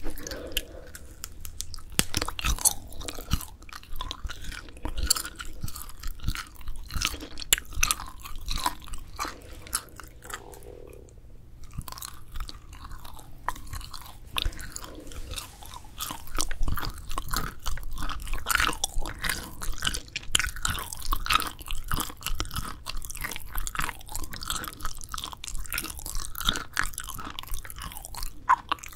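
Close-miked biting and chewing of grilled dried filefish fillet (jwipo): irregular crisp crunches and chewy mouth clicks, with a brief lull about twelve seconds in.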